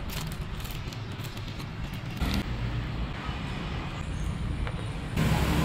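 Steady rumble of road traffic, with a louder vehicle passing about five seconds in.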